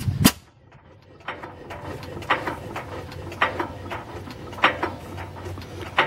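1908 Sta-Rite 4.5 hp stationary gas engine running very slowly, a sharp beat about once a second over a low steady hum. A sharp crack sounds right at the start, followed by about a second of quiet.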